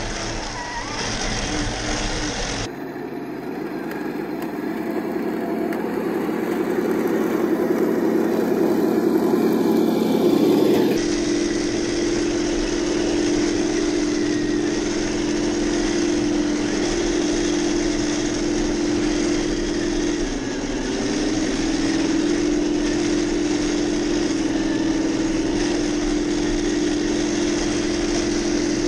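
Heng Long 1:16 RC Challenger 2 tank driving: a steady mechanical hum from its electric drive and its built-in engine-sound unit, whose pitch steps down and back up a few times with the throttle. The sound changes abruptly about three seconds in and again about eleven seconds in.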